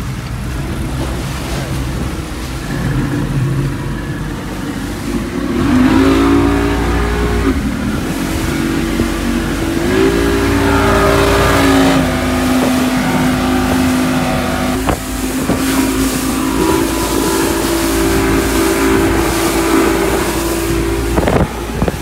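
Motorboat engine running under way, with wind and water rushing. The engine speeds up about six seconds in, eases off, speeds up again around ten seconds and then holds a steady cruising pitch.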